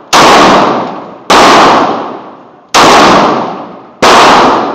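Four pistol shots roughly 1.2 to 1.5 seconds apart from a Glock 32 fitted with a 9mm conversion barrel and firing 9mm rounds. Each shot rings out in a long echo in the indoor range.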